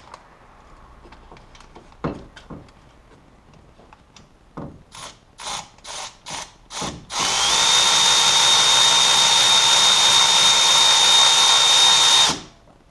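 Cordless electric ratchet with a 13 mm socket backing out a thermostat housing bolt on a 5.7 Hemi V8. It gives about five short trigger pulses, then runs steadily with a high whine for about five seconds and stops abruptly near the end.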